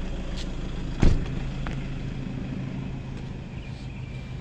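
Toyota Hiace ambulance's diesel engine idling with a steady low hum, and a single loud thump about a second in.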